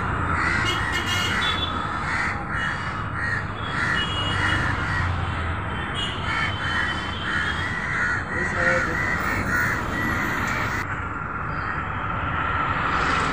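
Crow cawing over and over, about two harsh calls a second, the calls stopping near the end.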